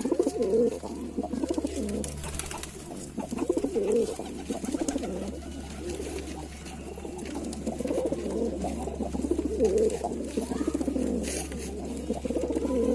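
Lalsara pigeons cooing: repeated low, warbling coos that follow one another without pause, swelling louder about half a second in, around four seconds and near ten seconds.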